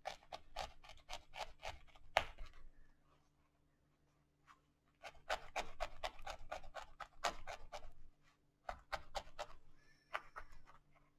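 Barbed felting needle stabbing again and again through wool fibres into a foam felting pad, about five quick pokes a second, in several runs with short pauses. The needle is matting the wool to shape a small felted rose.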